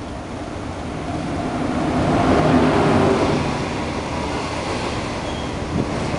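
An SS8 electric locomotive hauling a rake of 25T passenger coaches runs through the station at speed without stopping. The noise swells as the locomotive passes close, loudest about two to three seconds in, then settles into the steady rush and rumble of the coaches rolling by.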